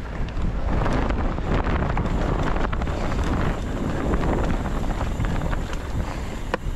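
Wind buffeting the microphone of a body-mounted action camera on a moving mountain bike, over the crunch and rattle of the tyres rolling across rocky trail, with a few sharp clicks and knocks from the bike.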